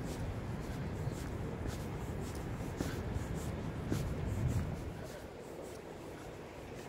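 Footsteps on paved ground at a walking pace, about two steps a second, over a low rumble that fades about five seconds in.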